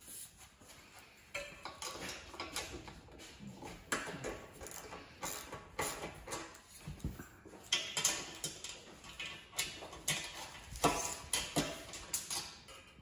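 Irregular metallic clicks and knocks from hand tools working the bolts on the mounting stands of a GT wing.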